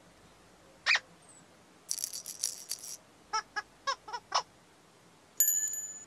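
Playful children's-TV sound effects: a short squeak about a second in, a rattle like a shaker, a quick run of five short squeaky notes, then a bright chime-like ring near the end.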